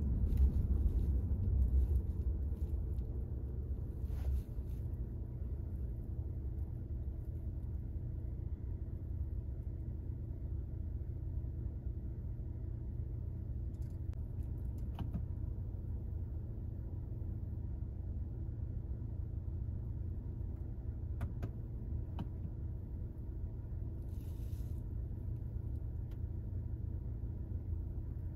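Low, steady rumble inside the cabin of a BMW G20 3 Series in town traffic, from engine and road noise, a little louder in the first couple of seconds, with a few faint clicks.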